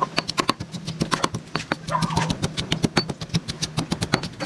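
Stone mortar and pestle pounding red onion and garlic: rapid knocks of the pestle, about six a second. A steady low hum sits underneath and stops shortly before the end.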